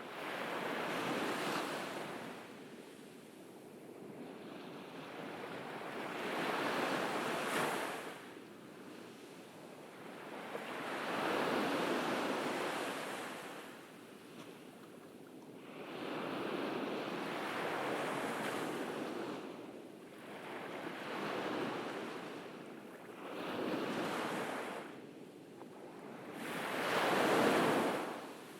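Ocean waves breaking on a beach: the surf swells and falls back every four to five seconds, about seven surges in all, the loudest near the end.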